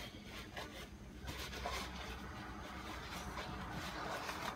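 A thin plastic bag rustling and crinkling as it is handled, with faint scrapes.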